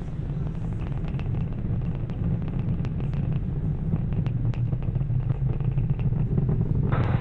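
Falcon Heavy's 27 Merlin rocket engines during ascent: a deep, steady rumble with scattered crackles, slowly growing louder.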